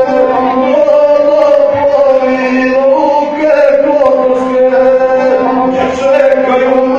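Gusle, the single-string bowed folk fiddle, played with a man chanting epic verse over it in the guslar style: a nasal, steady bowed line under a sung melody that moves in short phrases.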